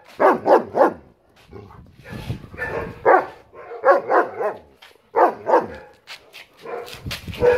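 Dogs barking in quick runs of two or three barks, several runs one after another.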